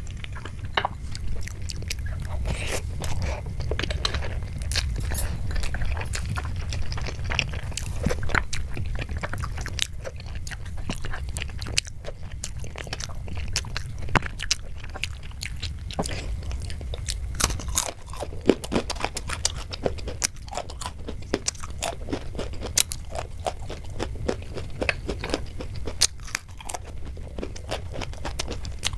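Close-miked chewing and crunching of food, with many small crunches and mouth clicks over a steady low hum.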